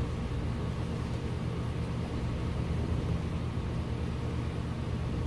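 Steady low machine hum, even throughout, with no clicks or knocks standing out.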